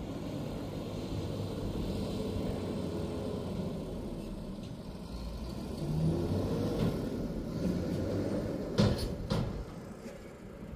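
Heavy vehicle engines rumbling steadily, growing louder about six seconds in, with two sharp knocks near nine seconds.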